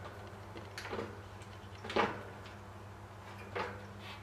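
A few short knocks and clunks as a bicycle wheel is fitted into the frame, the loudest about two seconds in, over a steady low hum.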